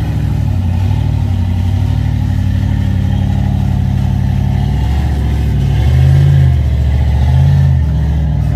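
Off-road vehicle engine running under load at low speed on a rock trail, rising in two brief surges of throttle near the end.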